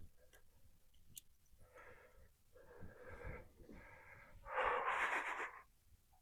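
A person breathing heavily: about four breathy puffs, the last a longer, louder exhale about four and a half seconds in.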